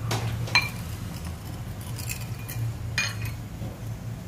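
A ceramic spoon clinks against a small ceramic bowl a few times as a thin liquid sauce is stirred and the spoon is set down in it, over a steady low hum.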